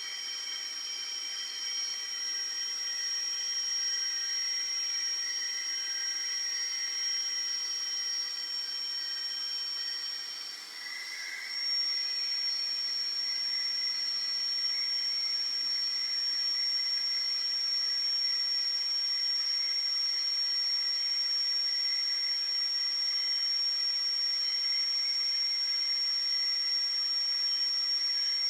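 Creality K1 3D printer running with a steady high-pitched whine made of several constant tones over a faint hiss; after a brief dip about eleven seconds in, the tones shift and settle again.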